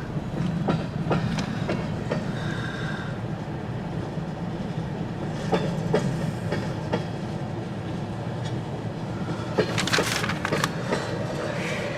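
CN freight train cars rolling past with a steady rumble, sharp irregular wheel clicks over the rail joints, and a few brief high wheel squeals.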